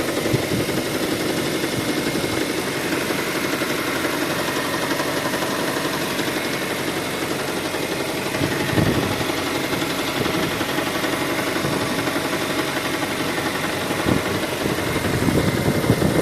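Petrol engine of a 2013 Kia Sorento running steadily at idle with an engine knock.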